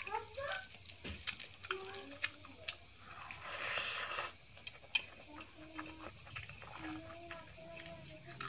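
Eating by hand: fingers mixing dal and rice on a steel plate with small wet clicks, then a wet hiss as a mouthful goes in about four seconds in, followed by chewing.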